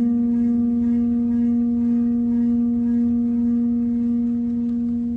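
A sustained ringing tone, low-pitched and steady, with several fainter overtones above it, beginning to fade near the end.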